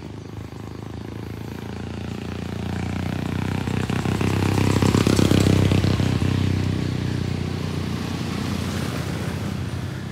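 A motorcycle passes close by. Its engine grows louder over the first five seconds, is loudest about halfway through, then fades away.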